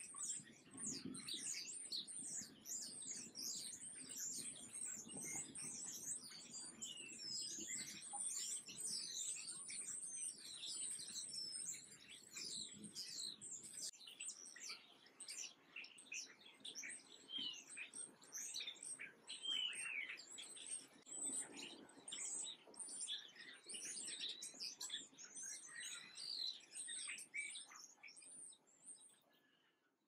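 Small songbirds chirping: a dense chatter of many quick, high chirps overlapping, fading out near the end.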